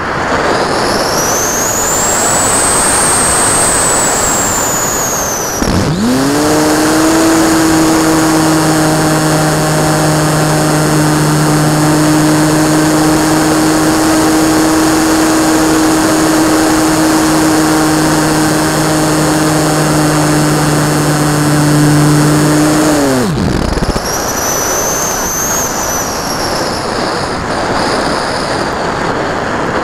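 Adagio 280 radio-controlled model plane's motor and propeller running in flight, picked up by a camera mounted on the plane, over steady rushing air noise. A high whine rises and falls over the first five seconds and again near the end. Between about six and twenty-three seconds the sound switches abruptly to a steady lower hum.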